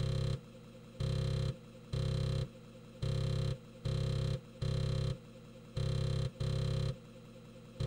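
Emulated floppy disk drive noise: a steady low drive hum broken by short buzzing bursts of drive activity about once a second, as the compiler reads and writes the disc.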